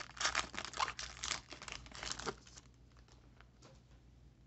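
Foil trading-card pack wrapper crinkling and tearing as it is opened by hand, for the first two and a half seconds or so, then a few faint ticks as the cards are handled.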